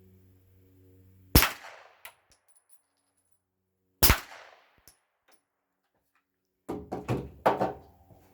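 Two suppressed pistol shots from a CZ P-07 fitted with a Rugged Obsidian 9 suppressor, firing supersonic ammunition, about two and a half seconds apart; each is a sharp crack with a short ringing tail. Near the end comes a quicker cluster of several quieter knocks.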